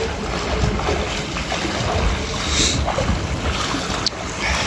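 Wind buffeting the microphone over the lapping and splashing of water in an outdoor swimming pool during a blizzard.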